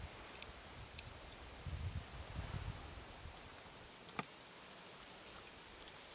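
Quiet meadow ambience: a faint, high-pitched thin chirp repeating in short even dashes, low bumps and rustles during the first three seconds, and one sharp click about four seconds in.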